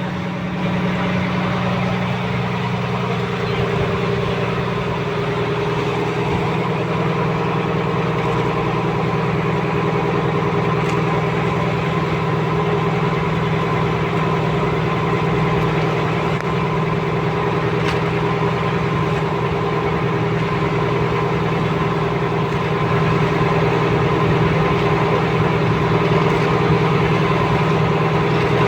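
Small fishing boat's engine running steadily, getting a little louder about three-quarters of the way through.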